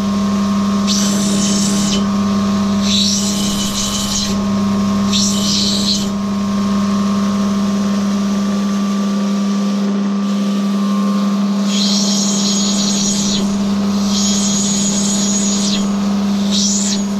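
Electric motor of a water-fed opal-grinding machine humming steadily, with about six hissing grinding strokes of roughly a second each as the opal is pressed against the wet wheel, and a pause of several seconds midway.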